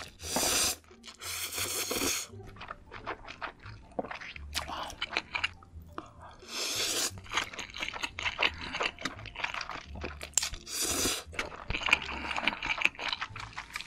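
Close-miked slurping of instant noodles, several long sucking slurps, with wet chewing and small clicks of mouth and chopsticks between them.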